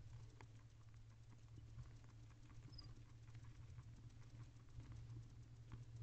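Faint, scattered small clicks and rustles from a barn owl preening its mate's head feathers with its bill, over a steady low hum.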